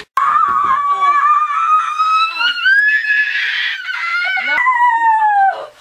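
A boy's long, high-pitched scream that starts suddenly, wavers and rises a little in the middle, then breaks off and gives way to a shorter scream that falls in pitch near the end.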